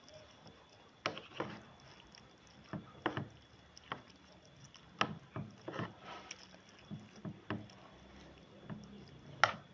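A spoon stirring rice and vegetable soup in a plastic bowl, knocking and scraping against the bowl in irregular clicks every half second to a second, the sharpest near the end.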